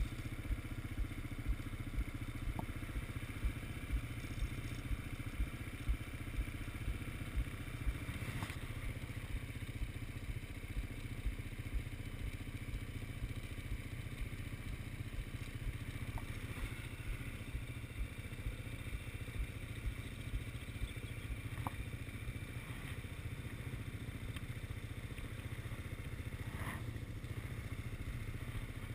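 Quad bike engine idling with a steady low throb, and a few brief knocks or clicks along the way.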